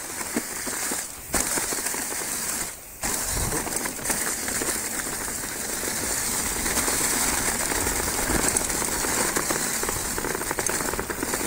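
Mountain bike tyres rolling fast over a trail covered in dry fallen leaves: a steady crackling rush with many small clicks and rattles, dropping away briefly twice in the first three seconds.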